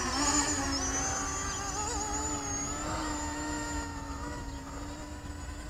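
Electric motors and propellers of an E-flite Convergence RC aircraft running at a buzzing pitch that wavers at first, then holds steady. The sound drops off a little about four seconds in.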